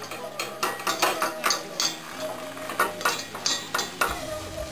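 Wire whisk stirring a butter-and-flour roux in a stainless steel pot, its wires clinking and scraping against the pot in quick repeated strokes, about three a second.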